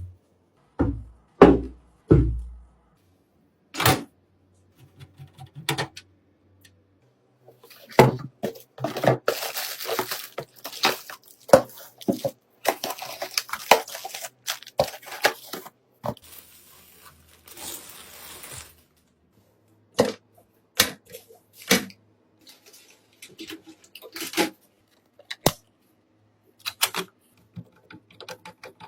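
Hands handling computer parts and packaging: scattered sharp clicks and knocks, with a dense stretch of rustling noise from about eight seconds in that lasts about eight seconds.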